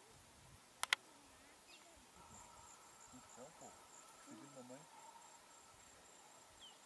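Faint, steady buzzing of insects, with two sharp clicks close together about a second in.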